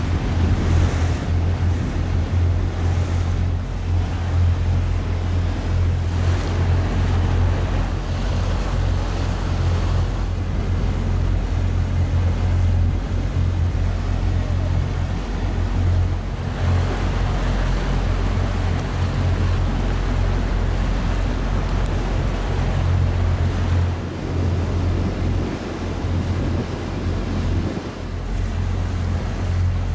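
Motorboat engine running at steady cruising speed, a constant low drone, with water rushing along the hull and wind buffeting the microphone.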